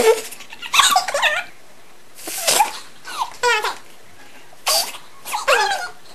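Girls laughing and giggling in short high-pitched bursts, with brief pauses between; one burst about three and a half seconds in is a quick run of falling giggles.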